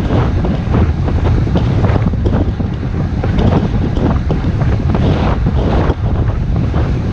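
Wind buffeting the microphone of a camera on a road bike riding at speed: a loud, steady, gusting rumble.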